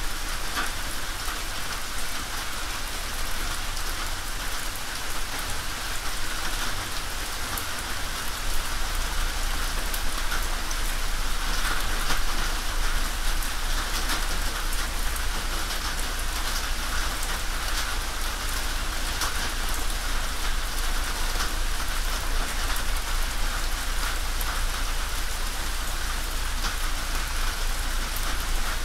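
Steady rain falling on a tin roof: a dense patter with many sharp individual drop hits.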